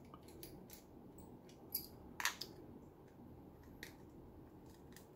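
Faint scattered clicks and ticks from a miniature screwdriver backing out a small screw and the speaker's plastic battery casing being handled, with two sharper clicks around two seconds in.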